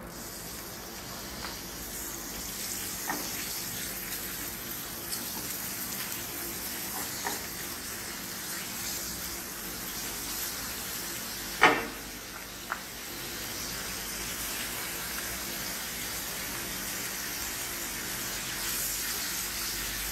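Chopped bacon sizzling steadily in hot olive oil in a stainless steel frying pan as it sautes, stirred with a wooden spoon. A few sharp knocks sound as it is stirred, the loudest a little past halfway.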